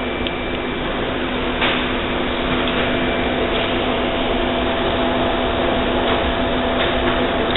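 Steady indoor background noise with a constant low hum and a few faint clicks, typical of a store's machinery and air handling.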